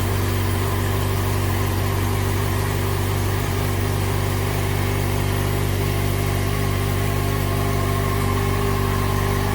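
2013 Yamaha FZ6R's 600 cc inline-four engine idling steadily, freshly started on a new battery with no check-engine codes showing.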